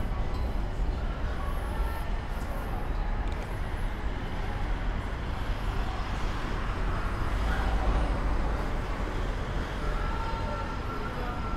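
Steady low vehicle rumble of a busy airport arrival area, with faint distant voices.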